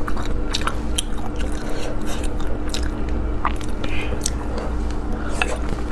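Fingers picking through small braised morsels of meat in chili oil on a plate, making scattered small clicks as the oily pieces are handled, over a steady low hum.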